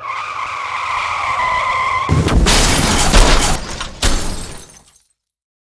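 Car-crash sound effect: tyres screech in a skid for about two seconds, then a loud crash of the impact, with a second bang about four seconds in, fading out soon after.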